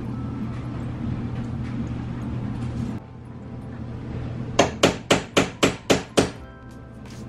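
A hammer tapping a finishing nail into a wooden cabinet kick plate: seven quick, sharp taps, about four a second, the first the loudest.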